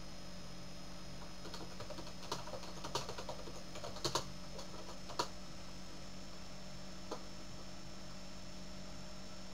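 Typing on a computer keyboard: an uneven run of keystroke clicks through the middle, the loudest few about four to five seconds in, over a steady low hum.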